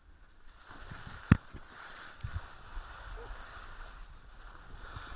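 Faint, muffled rush of wind and sea water picked up by a body-worn action camera as a parasailer is dipped to the sea surface, with one sharp knock about a second in.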